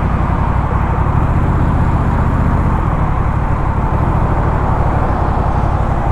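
2021 Honda Rebel 1100 DCT's parallel-twin engine running steadily at low revs as the motorcycle creeps along in slow freeway traffic, with steady road and traffic noise.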